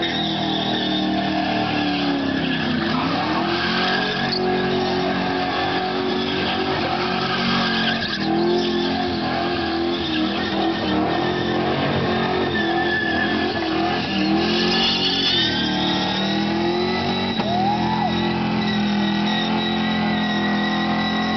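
Holden sedan's engine held at high revs in a burnout, the pitch rising and falling with several brief dips as the throttle is worked, over the continuous hiss and squeal of the spinning rear tyres.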